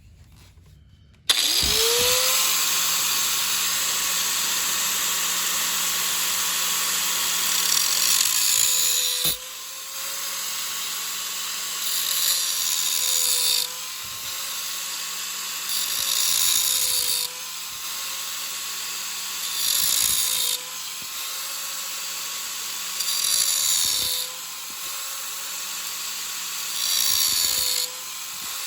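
Handheld electric power tool switching on about a second in and running at steady speed. From about nine seconds on it is worked in repeated passes, roughly every three and a half seconds: the noise gets louder and the motor's pitch dips slightly under load with each pass.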